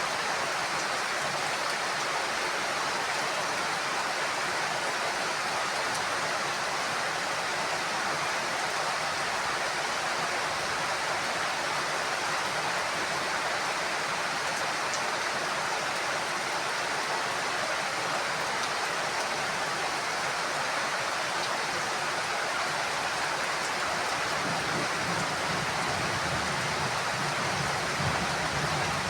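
Heavy rain falling steadily on a house roof, a dense, even hiss. A low rumble swells in underneath near the end.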